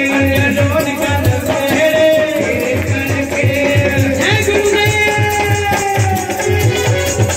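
Devotional bhajan music: a voice singing a melodic line over a steady drum beat, with fast jingling shaken percussion keeping the rhythm.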